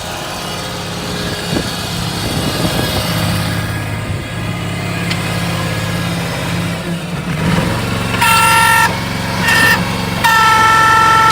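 Skid steer's Honda 20 hp gas engine running, then its hydraulic pump squealing loudly as the bucket is worked: two short squeals, then one held through the end. The pump squeals only when the bucket goes up or down, not when driving.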